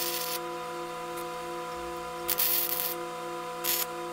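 Electric welder arc crackling in three short tack welds on sheet steel: one at the start, a longer one a little past two seconds in, and a brief one near the end. Steady background music plays underneath.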